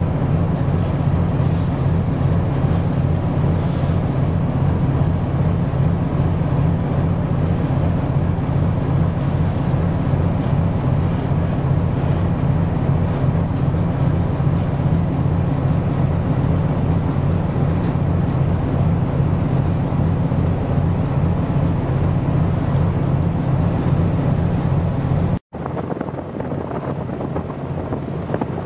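Ship's diesel engine running steadily, a low, fast, even throb with wind noise on the microphone over it. After a cut near the end the throb drops away, leaving mostly wind.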